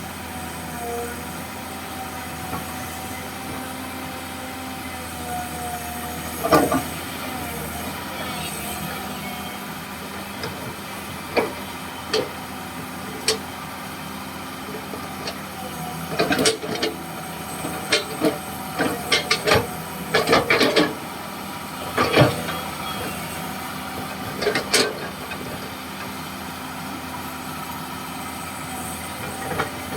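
Komatsu PC200-6 excavator's diesel engine running steadily. Sharp knocks and clanks come now and then, several in quick succession a little past the middle.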